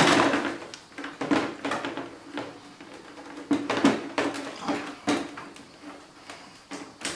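Scattered plastic knocks, clicks and rubbing of a motorcycle fairing cover being tipped forward and handled, as its headlight wiring connector is worked loose.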